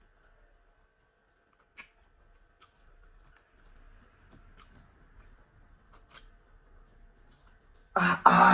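Quiet eating at a table: a few faint, sharp clicks of dish or utensil and soft mouth noises. About 8 seconds in a person's voice breaks in briefly and loudly.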